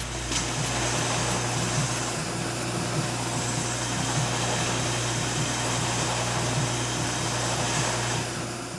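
Steady whir of a running shop machine with a low hum underneath, fading out near the end.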